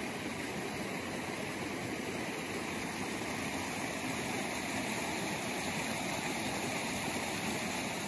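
Steady rush of water from a shallow, rocky mountain creek.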